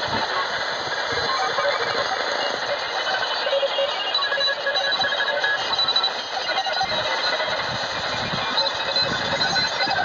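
Morse code beeps from several stations at different pitches, heard over a steady shortwave hiss and static. They come through the speaker of a Knup KCF-F21 portable AM/FM/shortwave radio tuned to the 20-metre amateur band.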